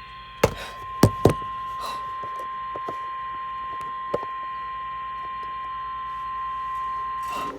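NOAA Weather Radio warning alarm tone: a single steady high beep that cuts off shortly before the end, announcing the severe thunderstorm warning message that follows. Sharp knocks sound over it three times in the first second and a half and once more about four seconds in.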